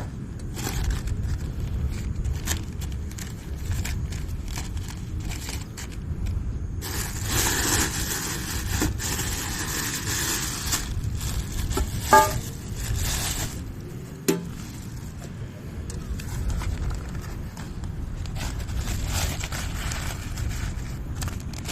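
Gear being handled: scraping and rattling with a burst of rustling about seven seconds in, and two sharp metallic clinks around twelve and fourteen seconds in, over a low steady rumble.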